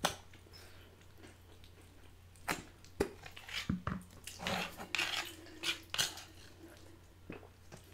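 A metal fork clinking and scraping against a metal sheet pan of macaroni and cheese: irregular sharp clicks and short scrapes, busiest in the middle.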